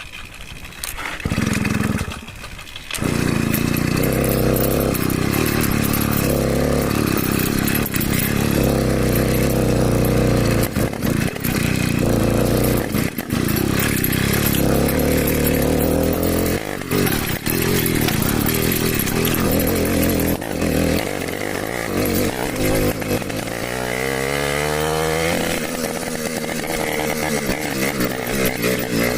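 Small motorcycle engine running loud through a bare exhaust pipe with no silencer. It catches about a second in, dips briefly, then runs steadily with the revs rising and falling, with a sharp rev-up near the end.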